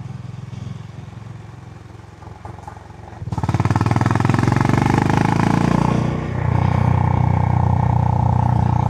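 Stock-exhaust Honda GB350 (H'ness CB350) single-cylinder engine heard from the rider's seat: quiet at low revs at first, then about three seconds in the throttle opens and it pulls hard. There is a brief drop around six seconds, like a gear change, and then it runs on steadily under load.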